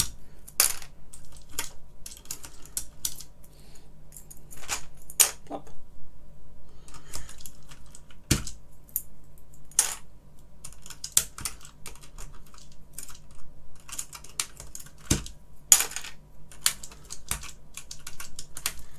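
Plastic keycaps being pulled off a BBC Master keyboard and dropped into a plastic tub: irregular light clicks and clacks, with two heavier knocks about a third and three quarters of the way in. A faint steady hum sits underneath.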